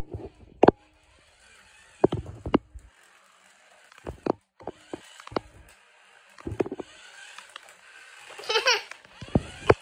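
Toy radio-controlled car running across a wooden floor, a faint steady hiss broken by scattered knocks and clicks. A small child laughs briefly near the end.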